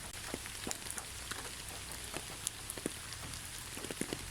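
Steady rainfall, a soft even hiss with individual drops tapping at irregular moments.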